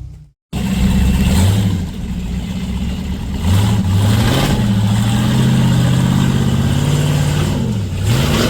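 A 4x4 truck engine revs under load, its pitch rising and falling several times. It starts abruptly about half a second in.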